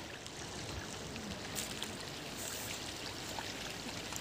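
Steady wash of river water with trickling and dripping as a cast net is drawn in and lifted out of the water.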